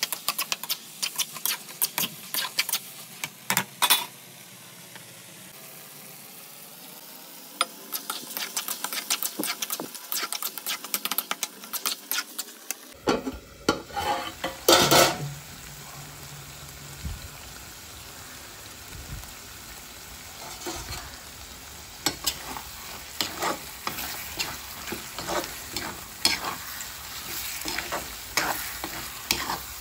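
A spoon scraping and clinking in a pan as chicken masala gravy is stirred, over a steady sizzle of frying. The scrapes and clicks come irregularly, with a short quieter spell of plain sizzling about five seconds in.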